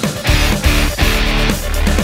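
Background music with guitar and heavy bass over a steady beat.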